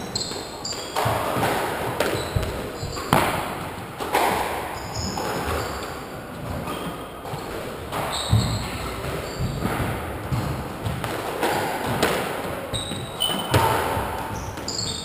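A squash rally: the ball cracks off rackets and the court walls in sharp hits about once a second, mixed with brief high squeaks of court shoes on the wooden floor.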